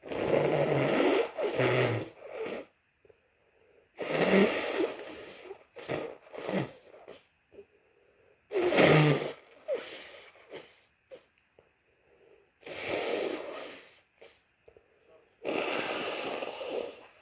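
A person with a cold sneezing and blowing their nose: five loud bursts, each one to two seconds long, a few seconds apart.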